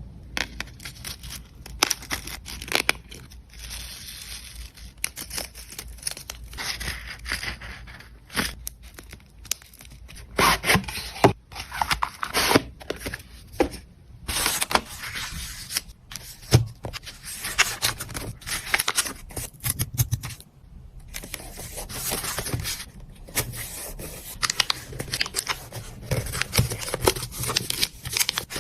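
Hands packing an order: packaging material crinkling, rustling and tearing in irregular bursts, with scattered sharp clicks and taps.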